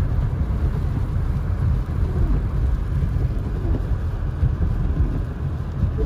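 Car driving on a snow-covered, slushy road, heard from inside the cabin: a steady low road noise of snow tyres running through wet snow and slush, under the engine.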